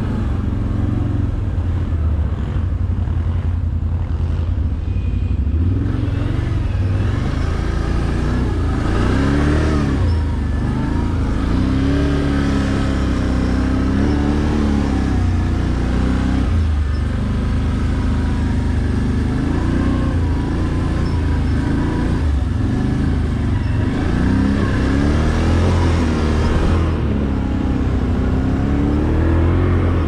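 ATV engine running under load as the quad is ridden over snowy ground, its pitch rising and falling again and again with the throttle.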